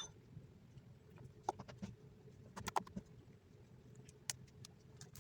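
Homemade borax-free slime being squeezed and stretched by hand, giving scattered soft sticky clicks and pops at irregular intervals.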